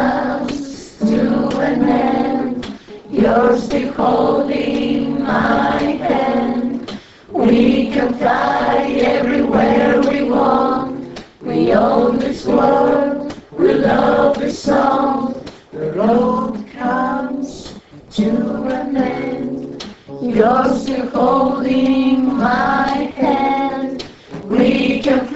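A group of voices singing a song in phrases with short pauses between them, over musical accompaniment.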